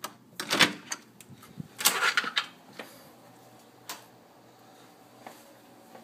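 Hotel room door being opened: a sharp knock of the latch and handle about half a second in, then a longer rustling swish around two seconds, and a few faint clicks afterwards.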